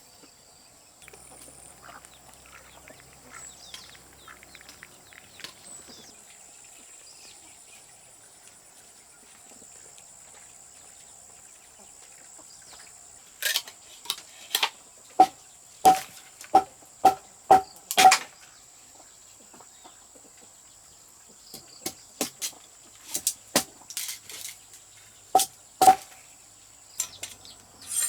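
A steady high-pitched insect drone, with sharp knocks and clinks, some with a short ringing note, in a quick run about halfway through and again a few seconds before the end.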